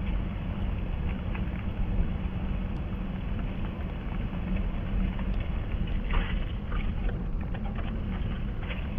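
Wind buffeting the microphone: a steady low rumble, with a few faint ticks about six seconds in.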